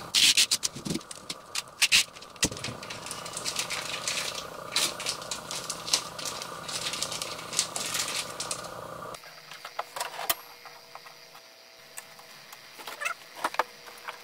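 Packaging being handled: irregular rustling, crinkling and clicking as tape and plastic wrapping are pulled off a 3D printer. About nine seconds in the steady background hum drops away abruptly, leaving sparser clicks and paper rustling.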